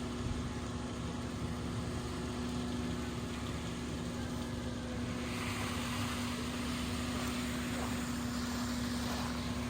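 An engine running steadily at idle with a constant hum. A rough hiss joins it about five seconds in.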